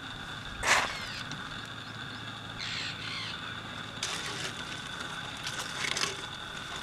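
Harsh, crow-like bird calls in several short bursts, the loudest about a second in, over a steady high-pitched drone.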